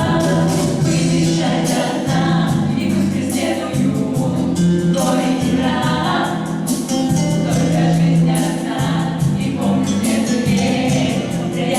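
Music with choral singing over a percussive beat.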